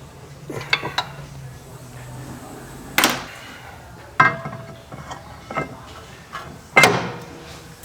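Metal tools and parts clanking: several sharp knocks, the loudest three with a short metallic ring, as steel tools and hub parts are handled and set down.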